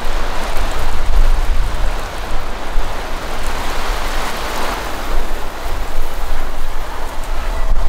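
Water spraying onto zucchini plants during watering: a steady, rain-like hiss, with an uneven low rumble underneath.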